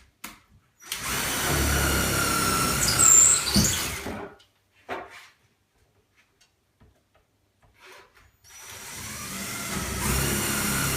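Power drill with a 1/4 inch bit drilling holes through a cabinet's thin back panel, a half-inch poplar strip and the wall behind. It runs twice with a steady whine, about three seconds the first time, then again after a pause of about four seconds.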